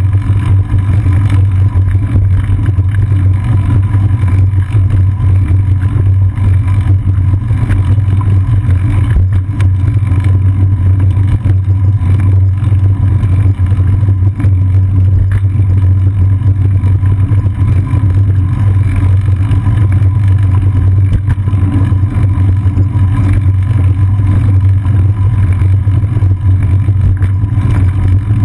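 Steady, loud low rumble of wind buffeting and riding vibration picked up by a seat-post-mounted GoPro Hero 2 on a bicycle rolling along a paved path in a strong wind.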